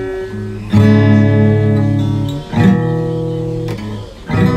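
Acoustic guitar playing a slow song intro: three chords strummed about two seconds apart, each left to ring out.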